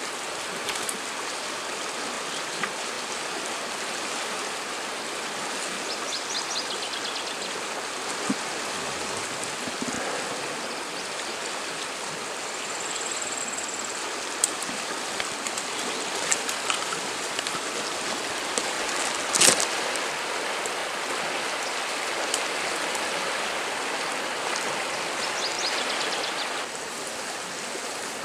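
River water rushing steadily, with scattered small splashes and clicks and one sharper knock about two-thirds of the way through.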